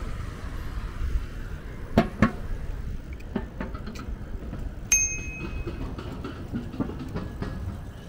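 Bicycle rolling along a paved footpath: a steady low rumble with knocks and rattles from the bike over bumps, and a single short metallic ring about five seconds in.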